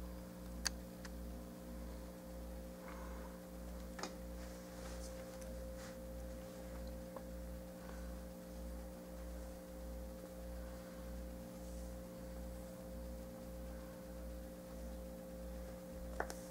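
Steady low electrical hum with a few held tones and a low throb pulsing about three times a second. A few faint clicks, one just under a second in and one about four seconds in.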